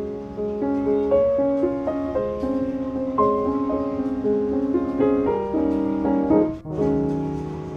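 Background piano music, a gentle melody of sustained notes, with a short break about six and a half seconds in.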